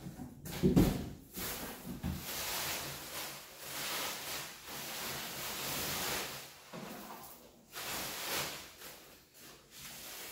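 Plastic protective bag rustling and crinkling and a cardboard box scraping as a heavy boxed speaker is pulled out of its packaging, with a heavy thump about a second in.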